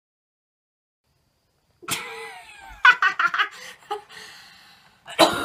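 Silence for about two seconds, then a girl laughing hard in quick bursts, easing off briefly before a second loud bout near the end.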